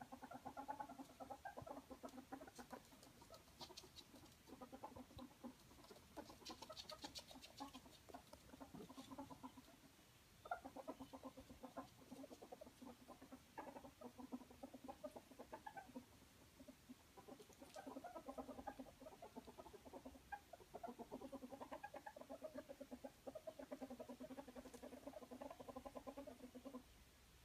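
Ferrets dooking: a fast, soft clucking chatter in long runs, broken by short pauses about ten and seventeen seconds in and just before the end. It is the excited sound ferrets make while playing.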